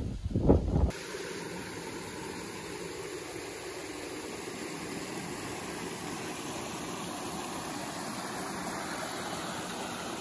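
A steady, even rushing noise, like falling water or wind, that sets in abruptly about a second in after a brief low rumble.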